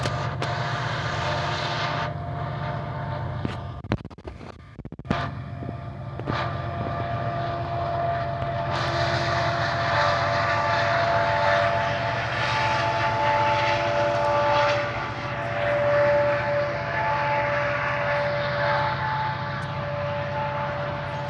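Freight train passing behind several diesel locomotives, including a Canadian National EMD SD70ACe: a steady low engine drone with a few steady whining tones. From about nine seconds in, the noise grows louder and fuller as the locomotives and then the freight cars roll by.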